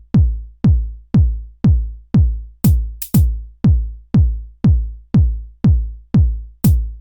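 Electronic music with a deep drum-machine kick drum beating evenly about twice a second, each hit dropping in pitch. Brief high cymbal-like hits come in about three seconds in and again near the end.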